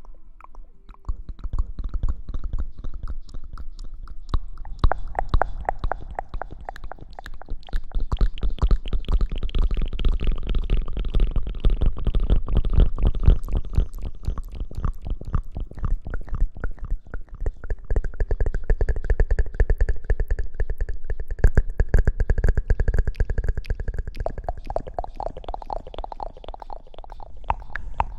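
Rapid, dense rubbing and scratching right against the microphone, starting about a second in and running in continuous strokes, heavy and booming in the low end: close-mic ASMR rustling and hair-washing-style scrubbing.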